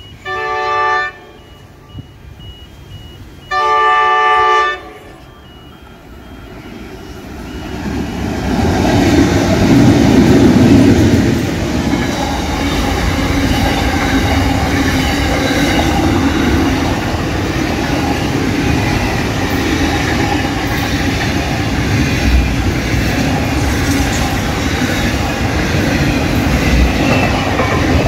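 Diesel freight train locomotive horn sounding twice, a short blast then a longer one, as the train approaches. The locomotives then pass, loudest about ten seconds in, followed by a steady rumble and clatter of container wagons rolling past.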